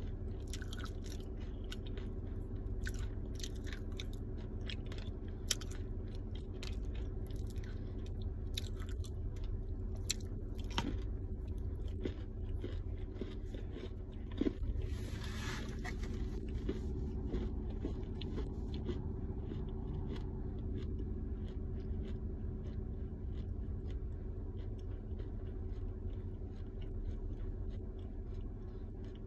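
Close-up chewing and crunching of a smoked ball of edible Mandingo clay: many sharp crunches, densest in the first dozen seconds, then thinning out. About fifteen seconds in there is a brief scraping noise, all over a steady low hum.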